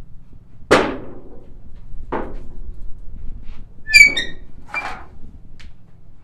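Scattered knocks and thunks from work on race car bodywork, the loudest about a second in, with a short high-pitched squeak or metallic ring about four seconds in.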